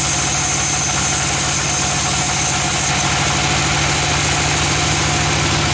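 Engine idling steadily with an even, fast beat, the kind that drives a sawmill's bandsaw. A high hiss over it cuts off about three seconds in.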